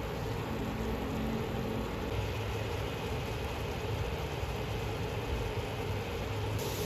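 Water boiling in a nonstick frying pan around longganisa sausages: a steady bubbling hiss with a low rumble.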